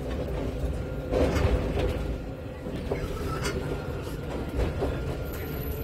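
Steady low hum and rumble inside a Nottingham tram standing with its doors open. There is a brief louder rustle about a second in, and a faint steady tone begins about three seconds in.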